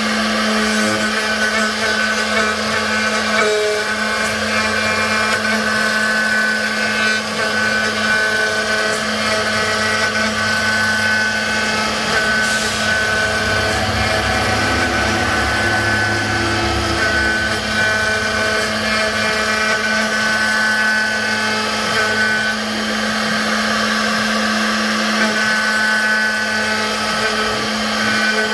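CNC router spindle running steadily while carving lettering into wood, with higher whining tones cutting in and out every few seconds as the machine moves.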